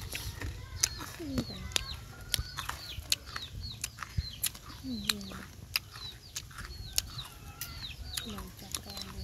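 Chickens clucking in low falling calls, with many short high chirps that drop in pitch. Over them, sharp irregular clicks and crinkles from a cat eating food out of a plastic bag.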